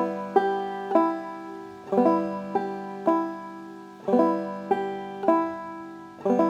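Five-string banjo played clawhammer style: a slow, repeated bum-ditty strum with the first string fretted at the second fret. Each pattern is a struck note, a brush and a thumbed fifth string, and it comes round about every two seconds.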